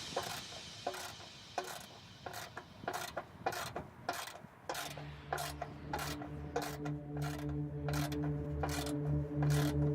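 Ratchet and 16 mm socket clicking in short, uneven strokes, about two clicks a second, as the oil drain plug is worked back in.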